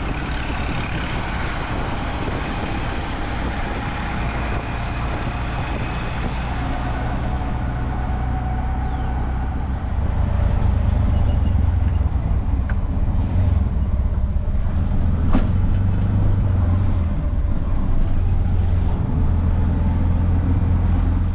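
A motor vehicle's engine running close by amid street traffic noise, with a steady low hum that gets louder about halfway through.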